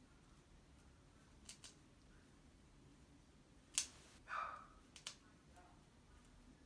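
Dog nail clippers snipping through a dog's toenails: sharp single clicks, about six in small clusters, with a short softer sound just after the loudest snip.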